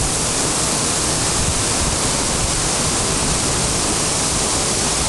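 Waterfall crashing into a pool: a loud, steady rush of falling water.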